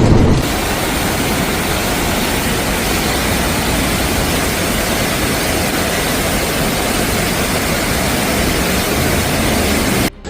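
Torrential rain: a loud, steady, even rush of water noise that cuts off abruptly near the end.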